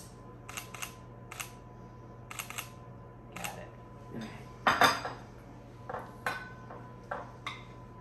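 Metal spoons clinking and scraping against ceramic soup bowls in scattered light taps, with two louder clinks about halfway through.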